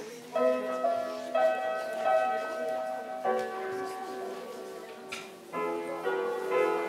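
Grand piano played slowly: full chords struck and left to ring, a new chord every one to two seconds.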